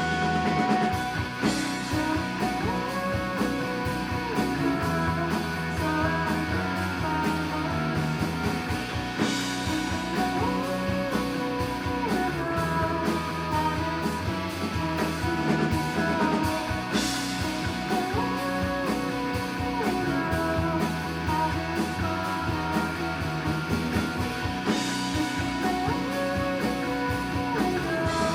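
A rock band playing live: electric guitar over bass and drums, in a slow repeating phrase with a cymbal crash about every eight seconds.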